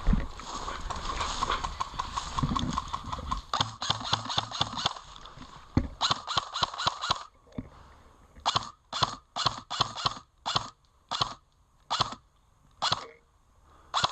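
Airsoft rifle firing: two quick strings of shots at about six a second, then steady single shots roughly every half second, each a sharp crack, with rustling movement at the start.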